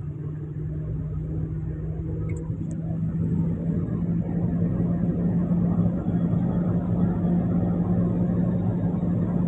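Vehicle engine running steadily while its tyres plough through floodwater covering the road; the rushing and splashing of the water grows louder from about three seconds in.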